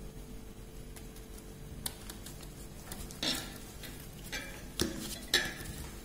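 Origami paper being folded and creased by hand on a hard tabletop: a handful of short, sharp crinkles and taps from about two seconds in, over a low steady hum.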